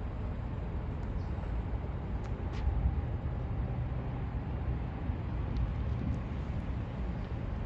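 Steady low rumble of city street and traffic noise, with a few faint clicks.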